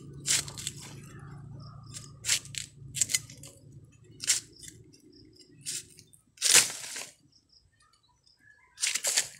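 Bolo knife chopping into a young bamboo shoot to cut away its husk sheaths: a series of about seven sharp cracks, the loudest a little past the middle.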